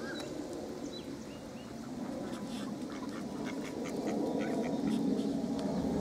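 Many ducks calling together in a dense, continuous chatter.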